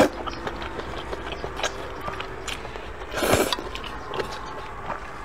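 Sweet potato vermicelli noodles being slurped into the mouth in a loud sucking burst at the start and again about three seconds in, with chewing and light clicks of chopsticks against a steel pot in between.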